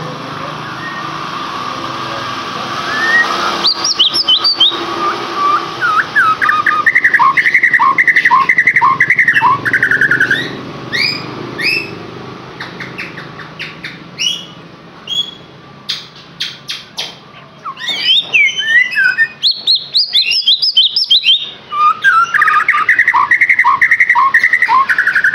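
A songbird singing in varied phrases: fast trills, sharp falling notes and rising whistles, broken by runs of rapid clicking. It is a chirping recording of the kind played as a trigger call to set a white-rumped shama singing.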